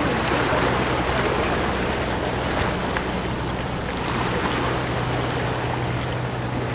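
Wind buffeting the microphone over choppy sea water, a steady rushing noise, with a low constant hum underneath.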